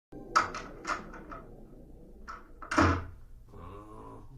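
A door opening and being handled in a small room: several sharp clicks and knocks, then a louder thud a little under three seconds in.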